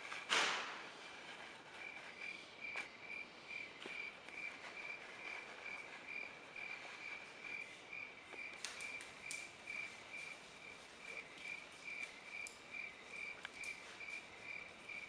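Crickets chirping in a steady, evenly pulsed high trill. There is one short, sharp rushing burst just after the start and a few faint clicks.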